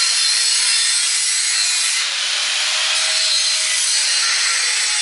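An angle grinder's abrasive disc cutting through steel exhaust tubing. It makes a continuous, loud, high hiss with a faint whine in it.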